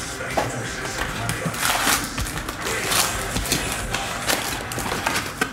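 Crinkling and rustling of sealed trading-card pack wrappers as a handful of packs is pulled out of a box, with light knocks of packs against the cardboard.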